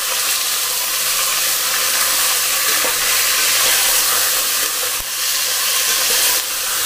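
Raw mutton pieces and golden-fried onions sizzling steadily in hot oil and ghee in a stainless steel pressure cooker, stirred with a metal spoon. The sound is the start of searing the mutton.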